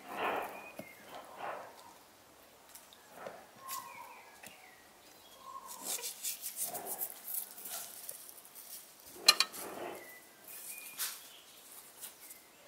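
Hands pressing sliced tomatoes into an aluminium pot, with soft rustling and handling noises. Salt is sprinkled over the tomatoes with a light hissing patter around the middle, followed by one sharp click. A few faint bird chirps are heard in the background.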